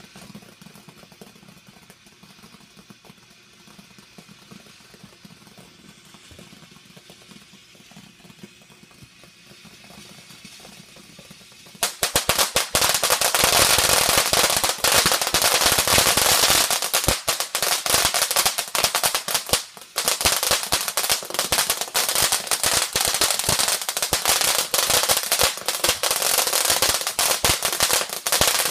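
Ground fountain firework spraying sparks, at first with only a faint hiss. About twelve seconds in it suddenly breaks into loud, dense crackling, rapid pops like a string of firecrackers, which keeps on with a brief lull near twenty seconds.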